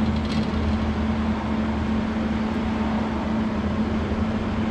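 Steady machine hum with a constant whir, like a running cooling fan or motor, unchanging throughout, with a few light ticks in the first half second.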